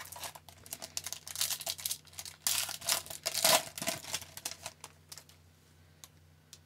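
Foil trading-card pack pulled from the box and torn open, its wrapper crackling and crinkling as the cards are worked out; the crinkling dies away about four and a half seconds in.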